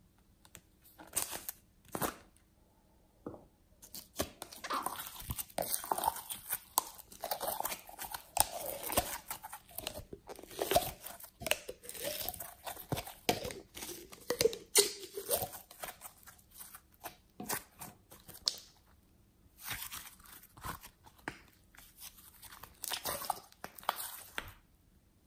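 Glossy glitter slime being squished, stretched and folded by hand, giving sticky crackling and popping sounds in bursts.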